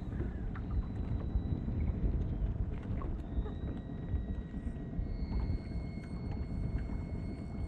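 Low, uneven rumble of wind buffeting the microphone out on open water, with a faint, thin, steady high whine over it.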